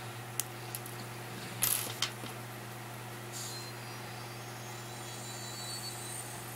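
A few light clicks and a brief scratchy rustle as fingers work a thin wire through a leather watch-strap end piece and push out its small metal transport rods. A steady low hum runs underneath.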